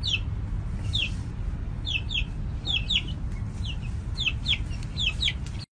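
A young chick peeping: short, high, falling peeps, often two in quick succession, repeated about once a second, over a steady low rumble.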